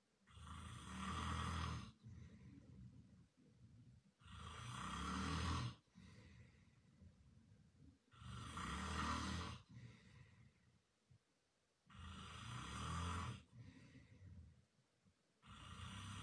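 A man snoring loudly in his sleep: five long snores about four seconds apart, with quieter breathing between them.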